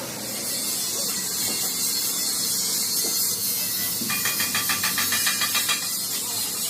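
A steady high hiss, joined by a fast, even rattling pulse from about four to six seconds in.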